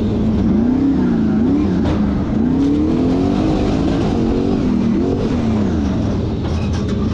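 Formula Offroad hill-climb car's engine revving hard under throttle, its pitch rising and falling again and again as the throttle is worked on and off.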